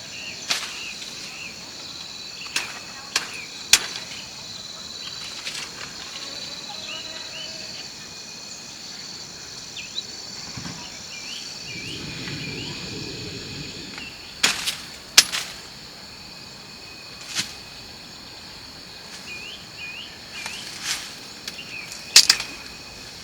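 Insects buzzing steadily with birds chirping, broken by sharp knocks or snaps at irregular intervals, several loud ones about 14 to 15 s in and again near the end.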